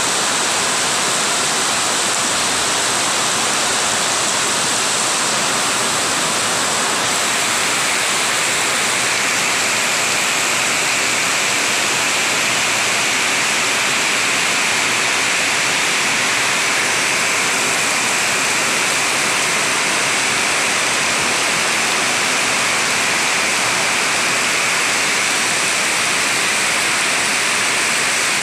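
Heavy rain pouring down in a loud, steady, unbroken hiss.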